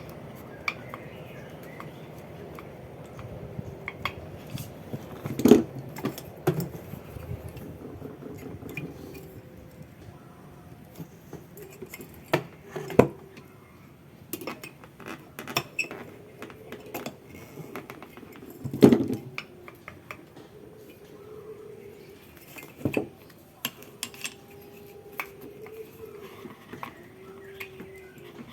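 Small metal tools and parts clinking and knocking against each other and on a work surface: scattered light clicks, with a few sharper knocks about 5, 13, 19 and 23 seconds in.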